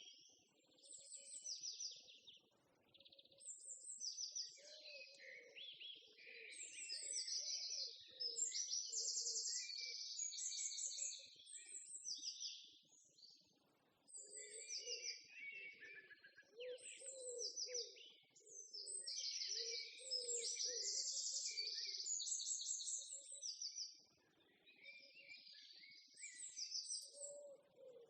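Several songbirds chirping and singing in overlapping bursts of fast, buzzy trills, with a softer, lower repeated sound beneath them at times.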